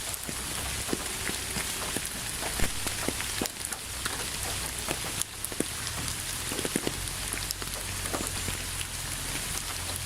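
Steady rain falling on a surface: an even hiss with many scattered individual drops ticking and pattering close by.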